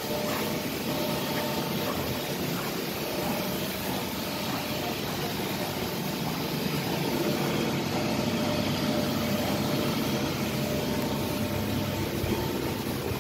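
Tanchem stainless-steel mass mixer running: a steady mechanical hum from its motor drive, with a faint steady whine.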